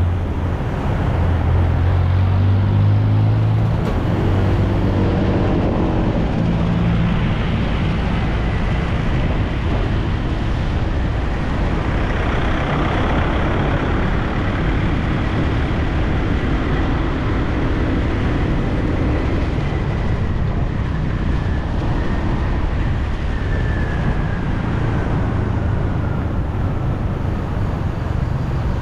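Motor scooter being ridden through city traffic. An engine note climbs as it speeds up over the first several seconds, then gives way to a steady rush of road and wind noise.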